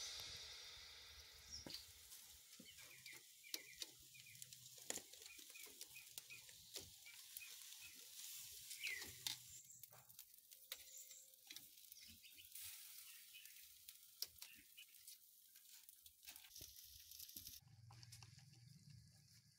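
Faint crackling and sizzling of pork ribs roasting in a wire grill basket over wood embers, with irregular sharp pops. Near the end a steady low hum takes over.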